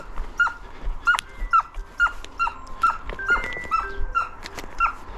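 Fox-hunting hound giving tongue in the chase: short, sharp yelps, each dropping in pitch at the end, about two a second, the sign of a dog on a fox's scent.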